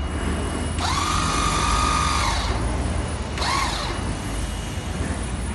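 Electric motor of a powered stair-climbing hand truck whining as it works the load over a step: one whine that rises quickly and holds steady for about a second and a half, then a short second whine about a second later.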